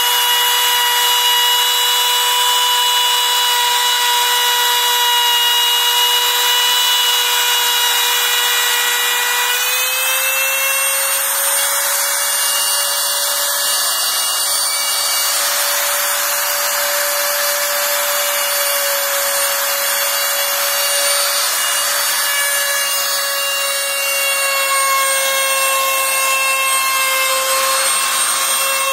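Makita 3709 trim router (530 W) running at full speed, its bit cutting a circle through a thin wooden board on a circle-cutting guide. A steady high motor whine over the rasp of the cut; the whine steps slightly higher about ten seconds in.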